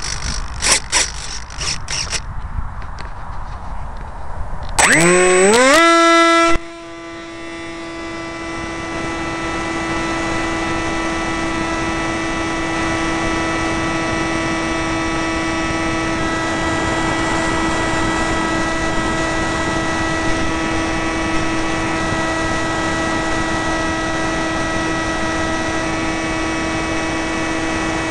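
Onboard audio from an RC Floater Jet: a few handling clicks and knocks, then the electric motor and propeller spool up with a steeply rising whine about five seconds in. The whine then holds steady through the flight, over a rush of wind noise.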